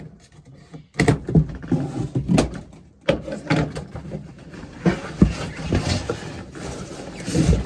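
Cardboard box being cut and pulled open by hand, with rustling, scraping and scattered knocks. The noise is more broken up in the first few seconds and becomes longer scraping and tearing after that.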